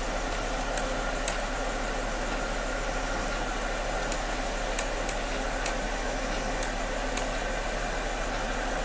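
Computer mouse clicking: about nine short, sharp ticks at uneven intervals, over a steady microphone hiss and a low hum.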